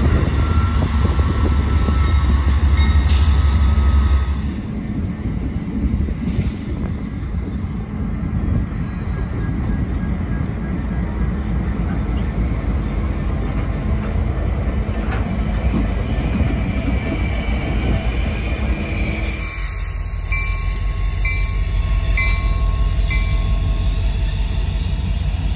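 Union Pacific diesel-electric freight locomotives rolling slowly past at close range: steady low engine rumble with wheel and rail noise, loudest for the first four seconds.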